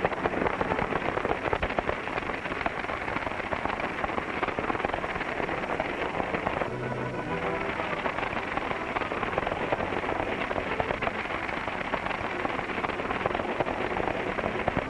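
Horses galloping, a dense clatter of hoofbeats on a dirt road, with a stagecoach rattling along behind them and film music underneath.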